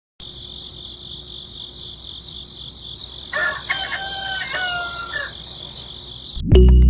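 A rooster crowing once, a call of about two seconds starting a little past three seconds in, over a steady high-pitched insect drone. Loud music cuts in just before the end.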